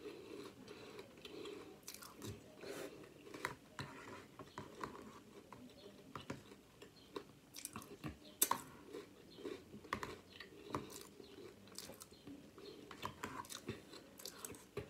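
A person chewing a mouthful of crunchy Drumstick cereal: faint, irregular crunches and crackles with a few sharper clicks, the loudest about eight and a half seconds in.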